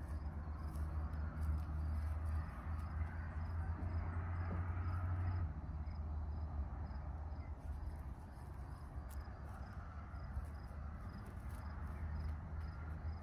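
Outdoor ambience: a steady low rumble with faint high chirps repeating evenly about twice a second.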